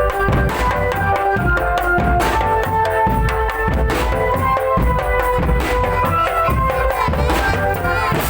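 Drum band playing: a steady beat of bass and snare drums under a melody of short, stepping pitched notes.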